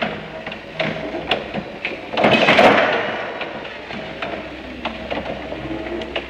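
Forklift being worked, with a thin steady whine and scattered clicks and knocks of its levers and mast. There is a loud rushing burst about two seconds in, and a faint rising whine near the end.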